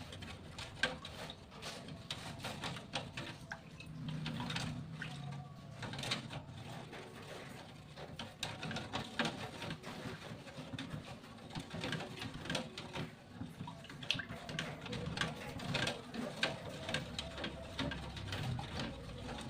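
Kitchen cooking sounds: irregular clicks and taps of utensils against cookware, with some liquid sounds.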